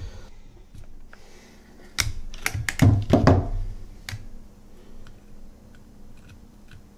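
Clicks and knocks of a cordless drill and metal carburetor parts being handled and set down. The knocks come in a cluster about two to three seconds in, followed by one sharp click and then a few faint light ticks.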